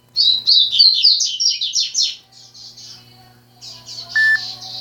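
Caged songbirds singing in rapid runs of high, chirping notes, about six or seven a second. One bird sings for about two seconds, and after a short lull another song answers. A brief beep sounds about four seconds in.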